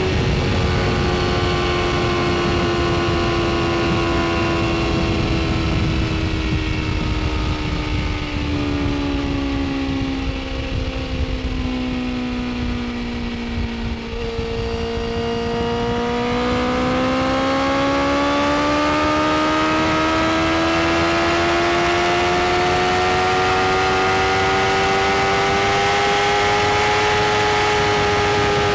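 BMW S1000RR's inline-four engine running at speed under a steady rush of wind. Its pitch sinks slowly as the revs drop for about the first half, then climbs steadily again as it accelerates, levelling off near the end.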